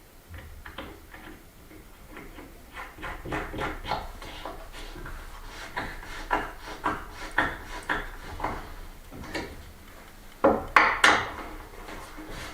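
Light clicks and taps of a cabinet knob and its screw being handled and fitted against a wooden cupboard door, with a few louder knocks about ten seconds in.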